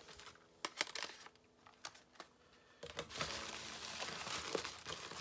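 A few sharp clicks, then from about three seconds in, bubble wrap crinkling and rustling as hands dig through it.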